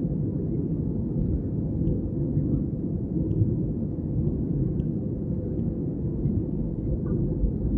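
Steady low rumble of an airliner heard from inside the passenger cabin, with a few faint ticks.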